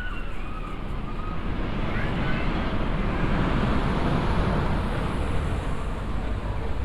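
Road traffic passing close by: a vehicle's rushing tyre and engine noise with a low rumble swells to a peak mid-way and then eases off.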